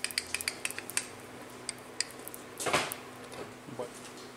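A half-inch hand ratchet clicking as it works an inner tie rod tool to unscrew the inner tie rod from the steering rack. A string of sharp metallic clicks runs through the first two seconds, then a brief rasp comes near three seconds.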